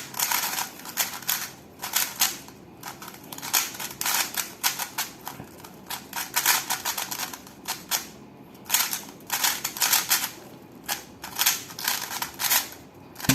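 Moyu Weilong WRM 2021 Maglev 3x3 speedcube being turned fast in a solve: rapid runs of plastic clicks and clacks as the layers snap round, with a brief pause about eight seconds in and a sharper click at the very end.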